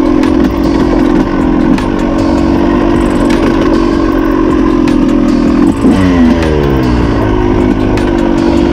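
Yamaha YZ250 two-stroke single-cylinder dirt bike engine running hard at steady revs while being ridden. About six seconds in, the engine pitch drops as the throttle comes off, then it settles back to steady revs.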